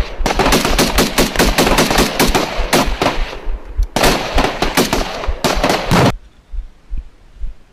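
Close automatic rifle and machine-gun fire: rapid bursts of shots, many overlapping, with a short lull in the middle. The fire stops abruptly about six seconds in, leaving only a few faint knocks.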